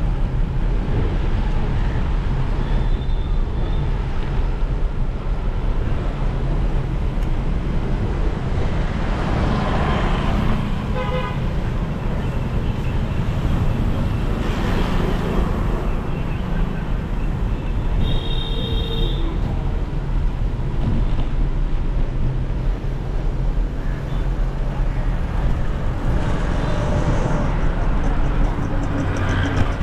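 Busy street traffic heard from a moving vehicle: a steady rumble of engines and tyres, with short vehicle horn beeps now and then, the clearest about two-thirds of the way through.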